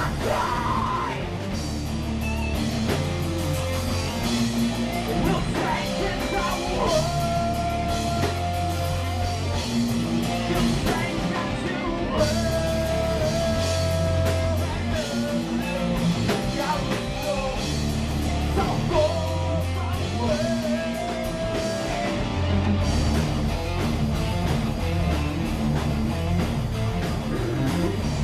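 A rock band playing live: electric guitar and drum kit together, with long held notes over a low, shifting riff.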